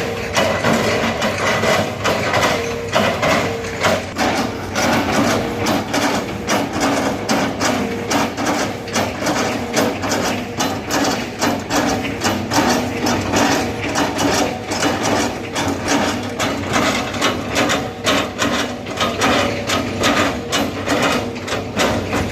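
Hitachi excavator working, its diesel engine running steadily under a rapid, irregular series of knocks and clanks, several a second.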